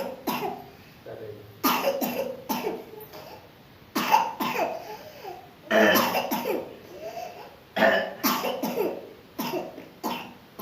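A person coughing hard and repeatedly, about a dozen coughs in quick clusters of two or three: a persistent cough with phlegm stuck in the throat.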